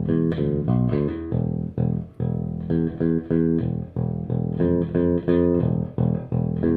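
Electric bass guitar fitted with a Hipshot aluminum bridge, plucked through an amplifier in a continuous line of notes, several a second with a few slides, in a bright tone.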